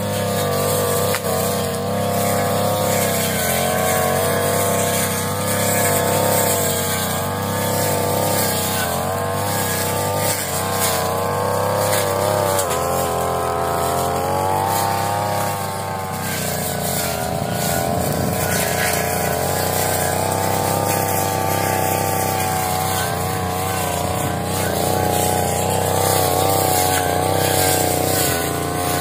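Petrol brush cutter engine running at high speed, its pitch wavering up and down as the load changes while it cuts grass and weeds.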